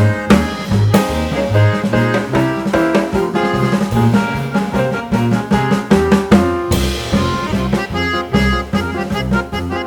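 Background music: an upbeat track with a drum kit, a steady bass line and keyboard chords, with a cymbal crash a little before seven seconds in.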